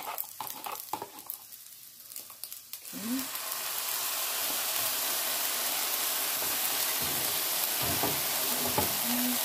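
Soy sauce mixture poured into a hot pan of fried rice, setting off a steady sizzle that starts suddenly about three seconds in. Before it, a few light clicks of a spoon against the pan.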